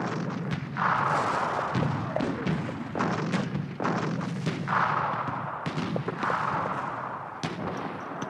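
Battle sound effects from an old film soundtrack: repeated gunshots and booms over a dense, noisy din, starting suddenly.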